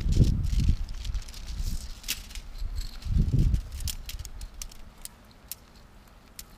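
A tent being pitched in a hurry: nylon fabric rustling, sharp clicks and rattles from the poles, and low thumps near the start and about three seconds in.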